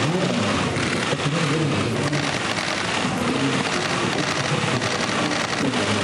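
Many camera shutters clicking rapidly and continuously, a dense clatter of press cameras firing at a photo call, with low murmuring voices underneath.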